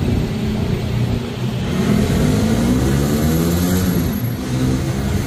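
An engine running with a low rumble; its pitch climbs from about two seconds in and sinks back by about four and a half seconds.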